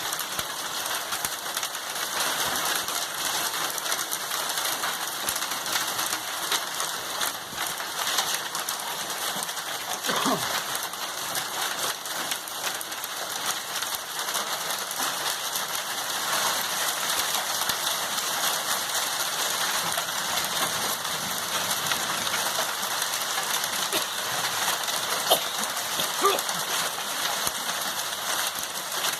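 Heavy rain pouring steadily in a dense, even hiss.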